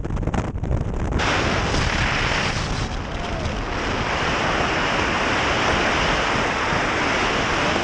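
Wind rushing hard over a camera microphone during a tandem skydive freefall. The noise is choppy and buffeting for about the first second, then steady and loud.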